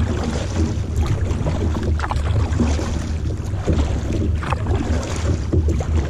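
Wind rumbling steadily on the microphone while a kayak is paddled, with the swish and splash of double-bladed paddle strokes in the water.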